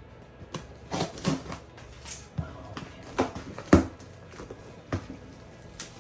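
Irregular handling noises from unpacking a shipped plant: rustles and crinkles of packaging with a few sharp knocks and clicks, the loudest a little past the middle.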